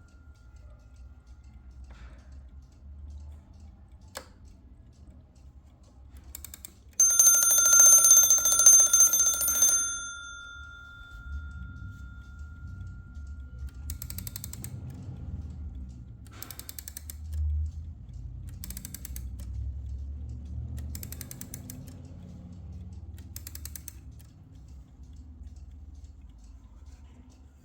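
Antique Junghans B32 alarm clock going off: its hammer rattles rapidly on the bell for about three seconds, and the bell rings on and fades after the hammer stops. Later come several short bursts of faint clicking, a couple of seconds apart.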